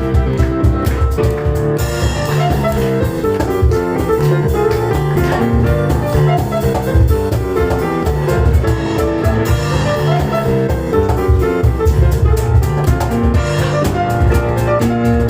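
Live piano and cajon duo playing a fast instrumental piece: rapid piano runs over a driving, steady percussion beat.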